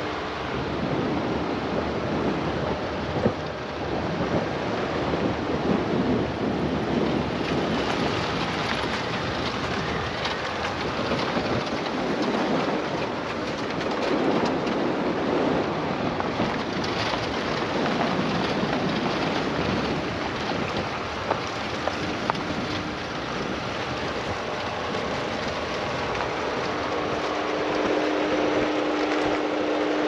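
Wind rushing over the microphone and road noise from a moving car, with a few short knocks.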